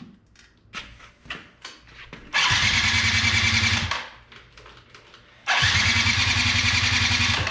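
The electric starter cranks the 2005 Yamaha Zuma YW50's 49cc two-stroke engine in two bursts, about a second and a half and then two seconds, each cutting off without the engine catching. The owner doubts that the new carburettor's float bowl has any fuel in it yet. Before the cranking there are a few faint clicks.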